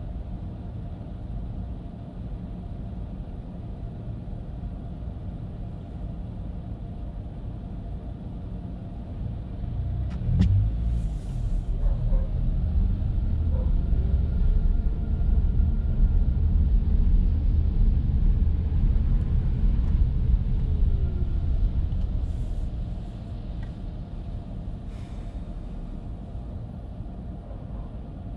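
Steady low road rumble of a Chevrolet Bolt driving on rain-wet city streets. The rumble swells louder about ten seconds in, holds for some twelve seconds, then settles back. A sharp click sounds just as it swells.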